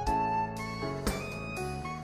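Background instrumental music: a slow melody of held notes that change every half second or so.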